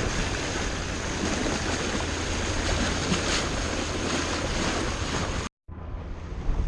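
Wind buffeting the microphone over the rush of sea water around a sailboat, a steady rough noise with a low rumble. It cuts out for a moment about five and a half seconds in and comes back duller.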